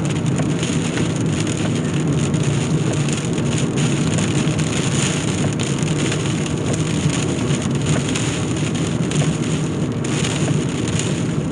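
Heavy wind-driven rain beating on a car, heard from inside the cabin as a steady, even noise.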